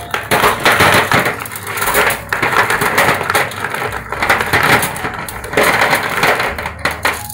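Clams in their shells sliding and rattling out of a tipped metal bowl onto aluminium foil: a dense clatter of shell against metal and foil, coming in repeated surges.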